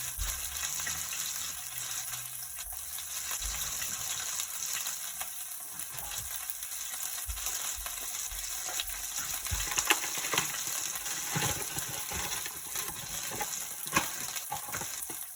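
Whole red snapper frying in hot oil in a pot: a steady sizzle with fine crackling, and a few light knocks, the loudest near the end.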